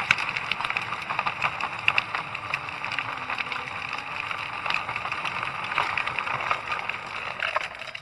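Electric drift trike rolling along an asphalt road: a steady rush of rolling and wind noise with frequent scattered clicks and rattles.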